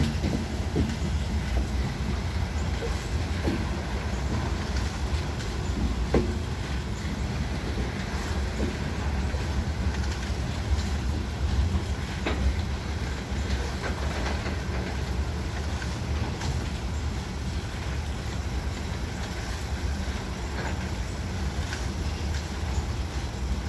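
Norfolk Southern freight train's covered hopper cars rolling past close by: a steady low rumble of steel wheels on rail, with occasional sharp clicks and clanks from the wheels and couplers.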